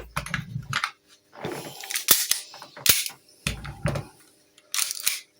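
Replica air pistol being worked by hand: the slide is pulled back and let go with short scraping rasps and sharp clicks, several times over, with a couple of dull knocks of handling between them. A BB is jammed in the slide.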